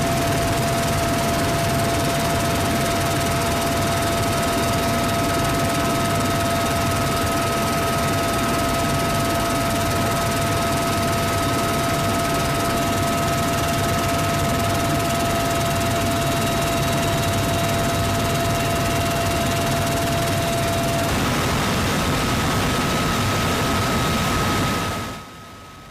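Steady noise of a military helicopter in flight, heard from inside the cabin at an open gunner's door, with a constant high whine over the rotor and engine noise. It drops away sharply near the end.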